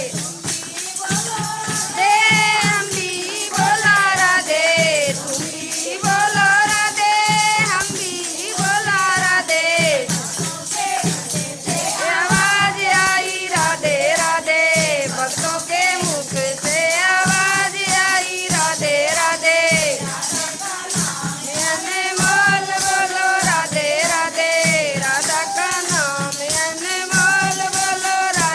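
A Haryanvi devotional bhajan being sung to a steady, even beat of low drum strokes and jingling, rattling hand percussion.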